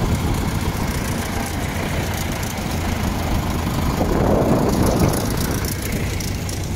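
Vintage farm tractor diesel engines running at low revs as the tractors drive past. A Zetor Super 50's four-cylinder diesel passes close about four seconds in and is loudest then.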